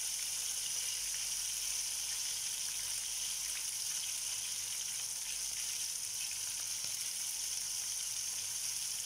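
Coated chicken wings shallow-frying in hot oil in a frying pan: a steady sizzle.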